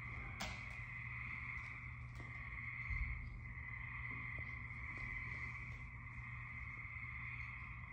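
Recorded chorus of gray treefrogs played back from tape loops: a continuous, dense trilling over a low steady hum. A sharp click comes about half a second in, and a low thump about three seconds in.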